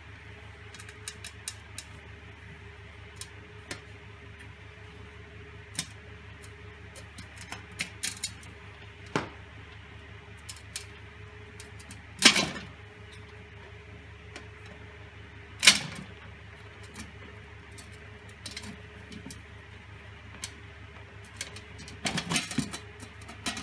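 Handling clicks and taps as the wooden top plate and its connectors are fitted onto an acrylic tank, with two loud sharp knocks about 12 and 16 seconds in and a burst of clatter near the end. A steady low hum runs underneath.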